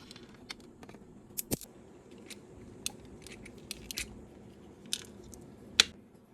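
Small sharp clicks and taps of a metal pin punch working against the plastic neck joint of an action figure, pushing out the pin that holds the head, with the loudest click near the end.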